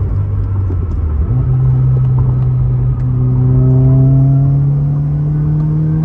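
Subaru WRX's turbocharged flat-four engine heard from inside the cabin through a downshift: the engine note steps up in pitch about a second in as the lower gear takes hold, then climbs steadily as the car pulls in that gear.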